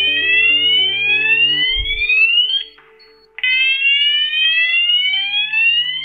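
C-TEC Hush-Pro fire alarm sounding a Fire Level 1 local alarm in the flat. It plays two slow rising sweep tones of about three seconds each, with a short break near the middle.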